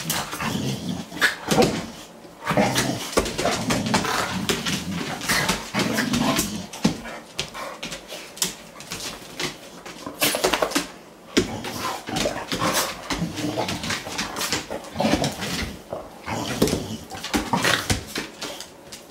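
A Boxer and a Morkie play-fighting: irregular growls, whines and short yips, mixed with rapid clicks and scuffles of nails and paws on a tile floor.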